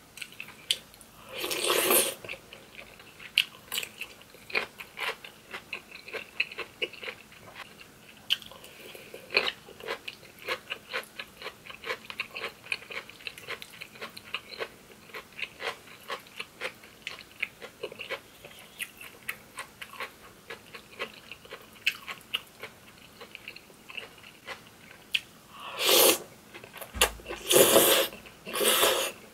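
Close-up mouth sounds of eating cream pasta with crispy grilled beef large intestine: rapid wet chewing clicks and crunchy bites. Loud noodle slurps come once about two seconds in and again twice near the end.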